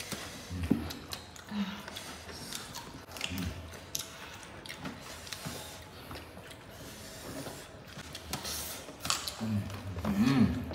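People eating rice and fried chicken by hand: chewing, lip-smacking and small clicks, with short low murmurs. Louder breathy puffs and a brief hum come near the end.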